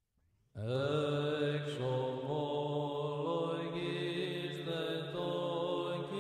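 Chanting voices starting about half a second in: a low drone note held steady under a melody that moves slowly from note to note, in the manner of Orthodox church chant.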